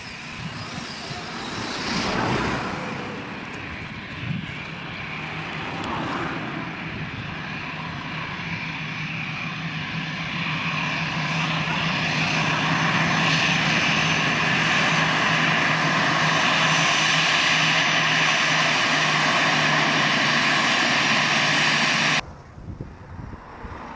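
An Airbus A319-111's CFM56 turbofan engines at taxi power: a steady jet whine over a low hum, growing louder as the airliner taxis up close. The sound cuts off suddenly near the end.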